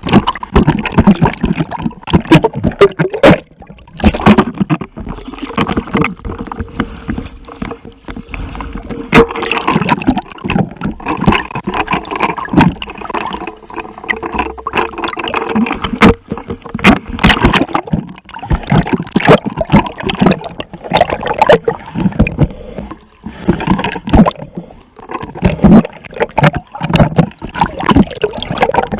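Seawater splashing and sloshing close to the microphone, with irregular sharp splashes from a person swimming. A faint steady tone runs beneath it for a while in the middle.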